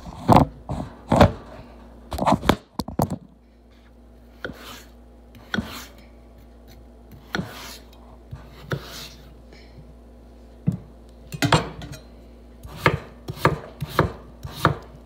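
Chef's knife cutting a peeled raw potato on a wooden cutting board: irregular knocks of the blade meeting the board. The strokes come close together at first, thin out to single cuts through the middle, and quicken again near the end.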